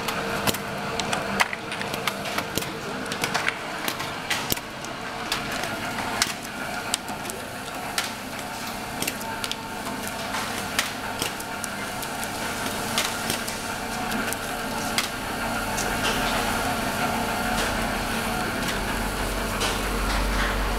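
Plastic-box gluing machine running: a steady motor and roller hum with frequent irregular light clicks as the plastic box blanks feed through. A low rumble swells in about three quarters of the way through.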